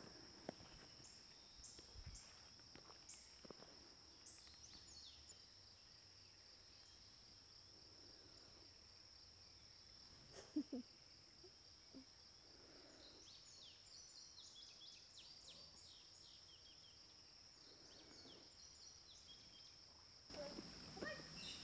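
Near silence with a faint, steady high-pitched insect trill throughout. Scattered faint bird chirps come and go, busiest in the latter half, and there is a single sharp click about ten seconds in.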